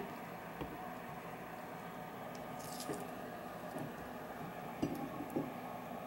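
Peeled mandarin segments being handled: a few faint soft taps and squishes over a steady low hum, the clearest two near the end.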